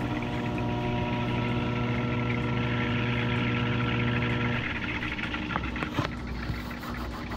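Haier HLP21N portable washing machine on an empty spin cycle: a steady motor hum with the drum whirring. The hum drops out after about four and a half seconds, leaving a quieter whir and a few clicks.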